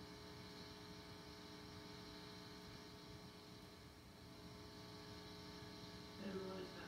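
Steady electrical mains hum and buzz from an idle electric guitar rig, with the guitar not being played. About six seconds in, a few louder pitched sounds begin over it.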